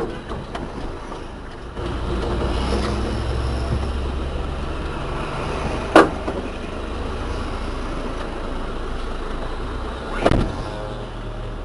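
A motor vehicle's engine running steadily with a low drone. A sharp click comes about six seconds in and a knock a little after ten seconds.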